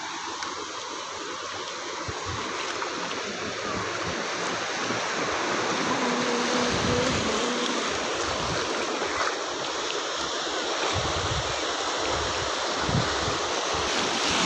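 Sea surf breaking and washing up a sandy beach: a steady rush that grows slightly louder over the first few seconds, with irregular low rumbles underneath.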